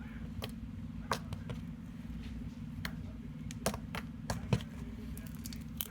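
Foamy slime being squeezed and folded by hand, giving scattered small clicks and pops, the loudest about three and a half and four and a half seconds in, over a steady low hum.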